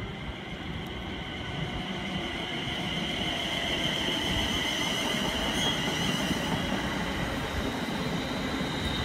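Passenger train pulling into a station platform: a rumble with a high, slightly wavering whine above it, growing steadily louder.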